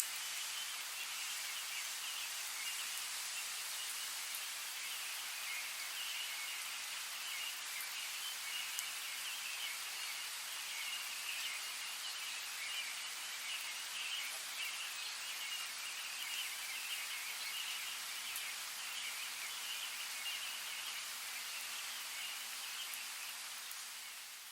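Steady rainfall in woodland with birds singing, fading out near the end.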